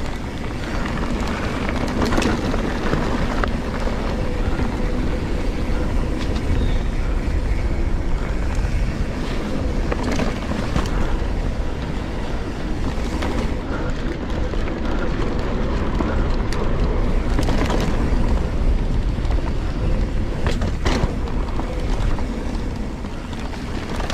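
2019 Giant Trance full-suspension mountain bike rolling fast down a dirt trail: a steady rumble of tyres on dirt mixed with wind on the camera microphone, and scattered knocks and rattles from the bike over bumps.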